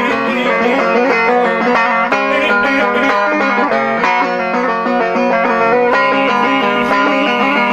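Turkmen dutar, a two-stringed long-necked lute, strummed in a steady rhythm while a man sings a traditional bagshy song over it.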